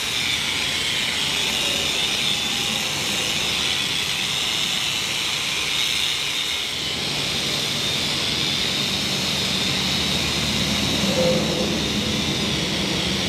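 Electric angle grinder running steadily, grinding old epoxy paint off a concrete tank wall. Its sound deepens a little about halfway through.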